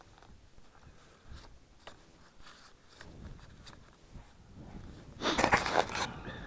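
Boots crunching in dry snow: a short, loud burst of crunching for under a second near the end, after a few faint scattered clicks.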